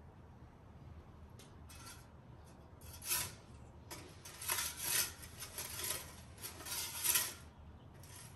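Metal pizza peel scraping against the floor of a small wood-fired pizza oven, a series of about six rasping scrapes starting about three seconds in as the pizza is turned and shifted.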